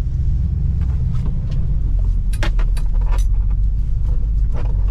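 A 1972 Chevelle SS's 327 small-block V8 running with dual exhaust, heard from inside the cabin as the car pulls away, a steady low rumble. A few light jingling clicks come about halfway through and near the end, from the keys hanging in the ignition.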